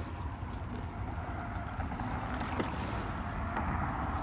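Wind buffeting the microphone beside choppy open water, with a faint, steady hum underneath.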